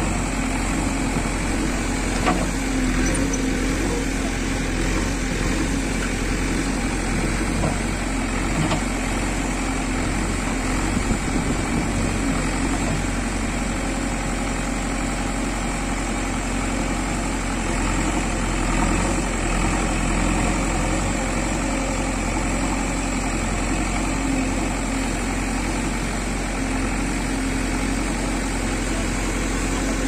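JCB 3DX backhoe loader's diesel engine running steadily while the backhoe arm digs soil, with a few faint knocks about two seconds in and again around eleven seconds.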